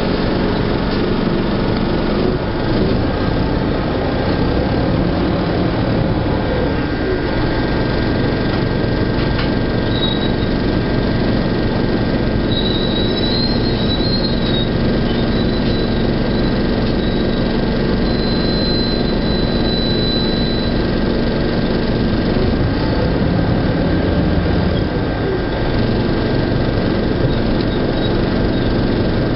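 1997 NovaBUS RTS transit bus's Detroit Diesel Series 50 inline-four diesel and Allison V731 automatic transmission running, the engine pitch rising and falling twice as it works. A thin high squeal is heard through the middle stretch.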